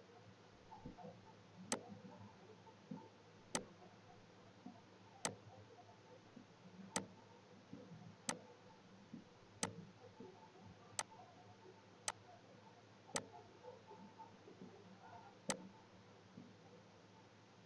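Computer mouse clicking: single sharp clicks at uneven intervals, about one every one to two seconds, over a faint low hum.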